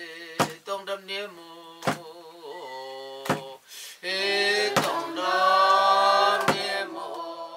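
Group of elderly Kuki villagers singing a traditional folk song in unison, a few voices at first and the whole group joining in louder about four seconds in. A hand drum is struck about once every second and a half.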